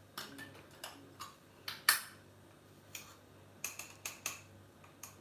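Light metallic clicks and clinks from a metal tin of bicarbonate of soda and a steel spoon being handled at the kitchen counter. About a dozen sharp taps come at uneven intervals, and the loudest is about two seconds in.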